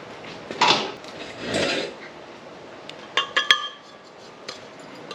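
Pieces of metal intercooler tubing being handled: a couple of scrapes, then a quick cluster of ringing metal clinks and clanks about three seconds in.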